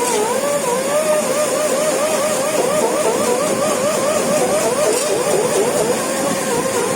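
Electric fish scaler's motor running with a whine that wavers up and down about three times a second as it works against the grouper's scales, over a steady hiss.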